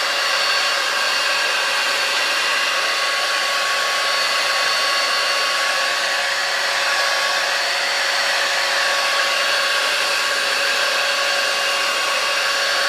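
5-in-1 hot air styler with its curling wand attachment running steadily, blowing air through the barrel to wrap the hair into a curl: an even rush of air with a motor whine held at several steady pitches.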